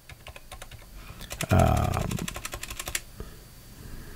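Typing on a computer keyboard: a run of quick key clicks as text is entered, with a brief murmured voice about a second and a half in.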